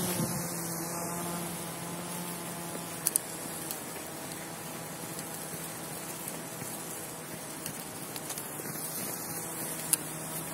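Small 7.4 V DC drone motor spinning a plastic propeller on a toy propeller-driven snow sled: a steady buzzing hum that grows a little fainter over the first couple of seconds.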